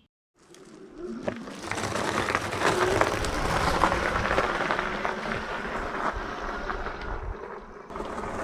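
Wind rushing over the microphone and tyre noise from a Hiboy EX6 electric bike being ridden at speed. It builds over the first couple of seconds as the bike picks up speed, with scattered small knocks from bumps, and eases off briefly near the end.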